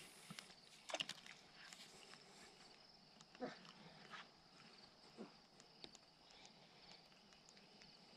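Near silence: faint outdoor ambience with a few soft clicks and taps, the loudest about a second in and another about three and a half seconds in.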